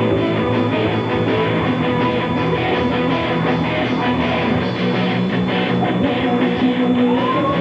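Rock band playing live, with electric guitars over a steady drum beat.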